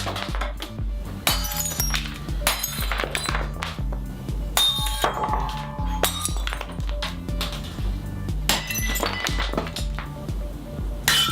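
Wine and champagne glasses smashed one after another with a hammer: repeated sharp breaks with glass shattering, clinking and ringing. Background music with a steady beat runs underneath.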